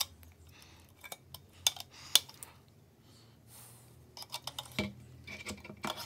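Combination pliers clicking and scraping against the sheet-steel housing and clip of a microwave magnetron as the clip is gripped and forced. Scattered sharp metal clicks, the two loudest about two seconds in, then a quicker run of small clicks near the end.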